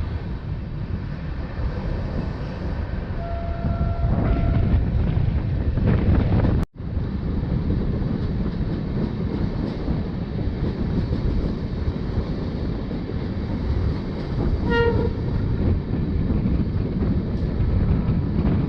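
Steady rolling rumble of a moving LHB passenger train. A horn sounds for about a second a little over 3 s in, and there is a short toot near the end.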